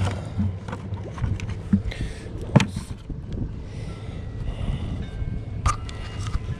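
Wind rumbling on the microphone, with a few sharp clicks and knocks from handling the bucket and towel; the loudest knock comes about two and a half seconds in.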